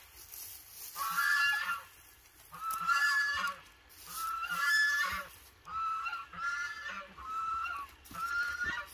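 An animal calling over and over, about seven short honk-like calls, each half a second to a second long.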